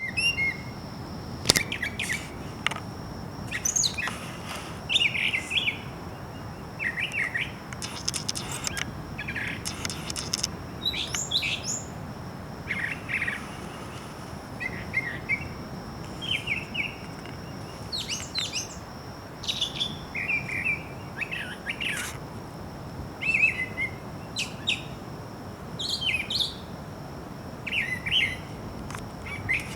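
A songbird singing short, varied chirping phrases, one every second or two, over a steady low background hiss.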